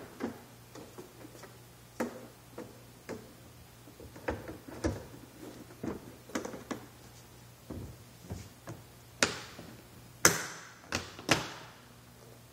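Hard plastic cover of a rugged rack case being handled and fitted onto the case, with scattered clicks and knocks, then three or four loud snaps near the end as it is seated and latched shut.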